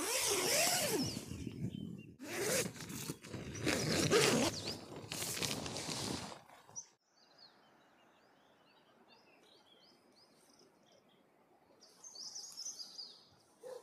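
Tent door zipper being unzipped in about three long rasping pulls over the first six seconds. After that, quiet open air with birds chirping repeatedly.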